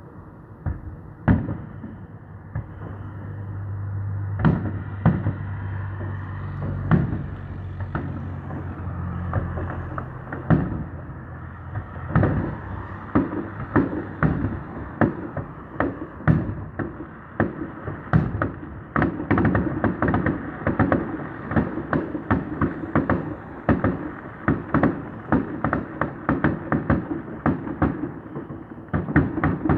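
Fireworks display: a few separate sharp bangs at first, then a rapid barrage of many bangs a second, like a finale volley. A low steady hum sits under the early, sparser part.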